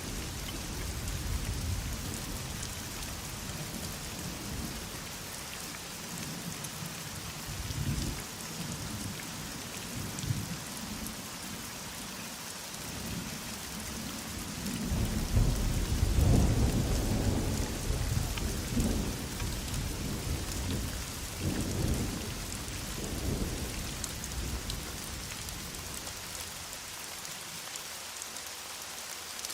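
Heavy rain falling steadily, with low rolls of thunder; the longest and loudest rumble comes about halfway through.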